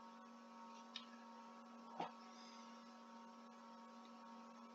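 Near silence with a faint steady hum, broken by a tiny click about a second in and a brief soft knock about two seconds in.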